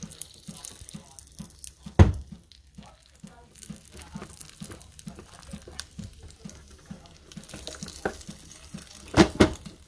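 Sucuk and kashar cheese toast sizzling and crackling in a closed toaster. There is a sharp knock about two seconds in and two more knocks near the end.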